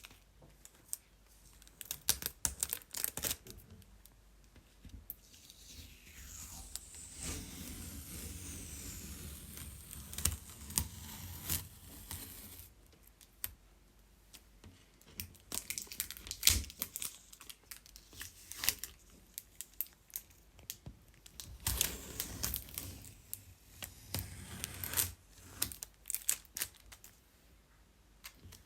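Adhesive tape being peeled off a surface: a long, steady rip of peeling with bursts of sharp crackles as the tape pulls away and crinkles.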